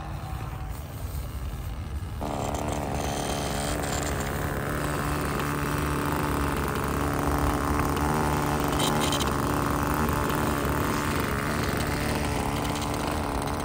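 Two-stroke O.S. 15 LA glow engine on a balsa model plane idling steadily close by. It comes in suddenly about two seconds in; before that there is only a low rumble.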